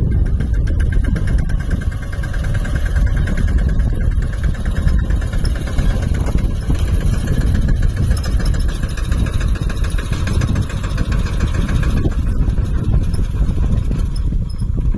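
Mahindra Yuvraj 215 tractor's single-cylinder diesel engine running steadily with a fast, even beat.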